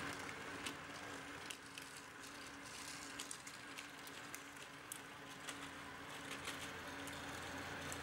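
Magna-Rail model car system's electric drive motors running: a faint steady hum with scattered light clicks.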